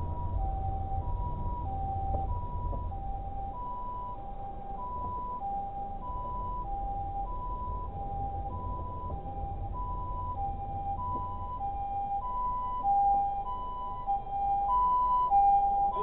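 Japanese ambulance two-tone "pee-poh" siren, alternating between a higher and a lower note about once a second. It grows louder toward the end, over the low rumble of the car's road noise.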